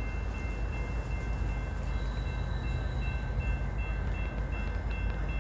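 Distant freight train approaching behind Norfolk Southern's SD70ACU and AC44C6M diesel locomotives: a steady low rumble, with faint thin high tones above it, one of them pulsing on and off.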